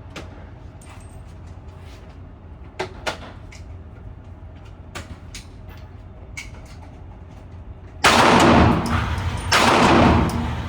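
Gunfire at a shooting range: faint, scattered single shots over a low steady rumble, then two loud bursts of noise about a second each near the end.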